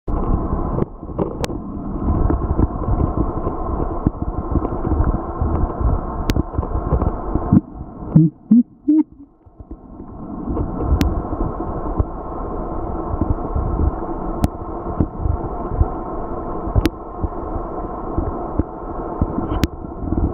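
Underwater ambient noise picked up through a waterproof compact camera's housing: a dense, muffled low crackling rumble with faint sharp ticks every few seconds. Just past halfway it drops away for a second or so, with a few short low blips, then builds back.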